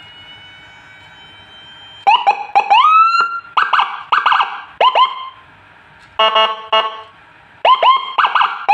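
SA5400 dual-tone HHS siren module sounding through a horn speaker in short bursts of different siren tones: quick rising chirps, a warble, and a brief buzzy horn tone about six seconds in. The module is working normally after a short-circuit repair.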